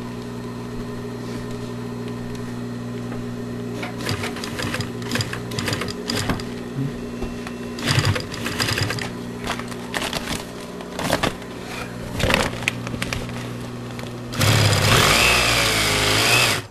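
Singer industrial sewing machine running: a steady motor hum, then from about four seconds in stitching through vinyl in short irregular bursts. Near the end comes a louder fast continuous run of stitching that stops abruptly.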